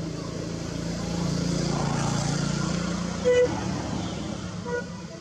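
A motor vehicle passing, its steady engine drone swelling and then easing off, with a short horn toot about three seconds in.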